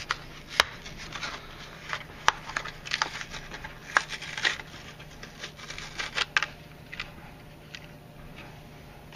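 Small, sharp metallic clicks and light scrapes, spaced irregularly and thinning out near the end, as small steel parts are worked on a Ruger Mark I pistol bolt while the extractor and its spring are removed. A faint steady low hum runs underneath.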